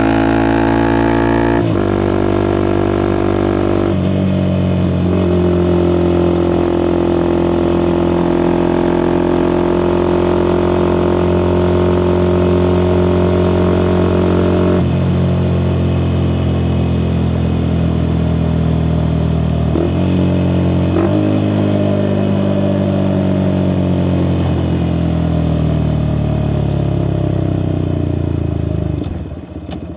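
Suzuki Gixxer SF 250's single-cylinder engine through a Yoshimura R11 exhaust, heard from the bike while riding. It shifts up twice in the first few seconds, then holds a steady cruise. From about two-thirds of the way through it slows, the engine note falling gradually and getting quieter near the end.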